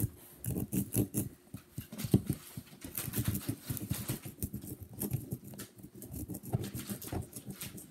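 Small plastic digging tools scraping and picking at moistened Treasure X sand blocks, a rapid, irregular scratching and crumbling.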